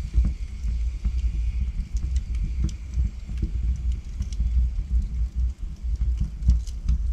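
Wood logs burning in a fireplace: a steady low rumble of flames with frequent sharp crackles and pops scattered irregularly through it.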